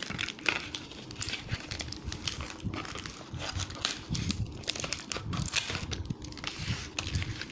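Plastic-wrapped packets crinkling and crackling as they are handled and pulled out of a cardboard box, with irregular crackles throughout.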